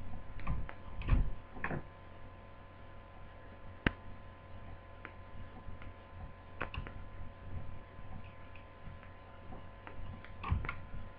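Scattered light clicks and taps from a small screwdriver and hands on a laptop's plastic lid as a screen-mounting screw is driven in, over a steady electrical hum. One sharp click comes about four seconds in.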